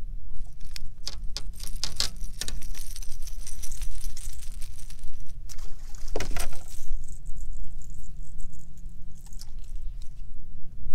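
Metal clicking and rattling of fishing pliers and a topwater lure's hooks as a small striped bass is unhooked, with a louder burst of rattling about six seconds in, over a steady low rumble.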